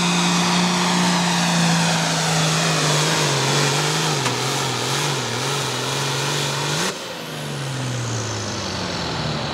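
Ford 8600 pulling tractor's six-cylinder diesel engine running hard at full throttle while it drags a pulling sled. Its pitch sags and wavers as the load builds. About seven seconds in the engine suddenly gets quieter and winds down, as the throttle is cut at the end of the pull.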